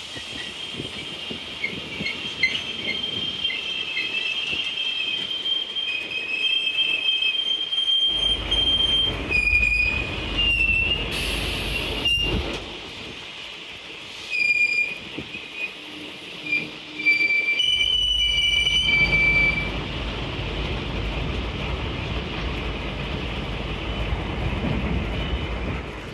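Freight train of Network Rail open box wagons rolling past close by, its wheels squealing in high, shifting tones with scattered clicks. Two stretches of heavier low rumble come about a third and about two-thirds of the way through.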